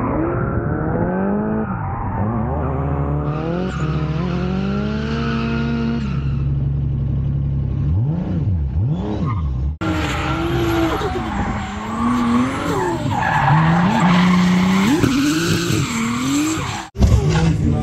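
Drift car engines revving hard, pitch rising and falling over and over, mixed with tyre squeal as the cars slide sideways. For the first ten seconds or so it is heard from aboard a chasing car. After that it is heard from trackside, with a brief dropout near the end.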